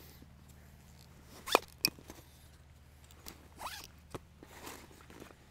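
Spotting scope being slid into a nylon backpack: fabric scraping and rustling, with two sharp snaps about a second and a half in and smaller scrapes and a click later on.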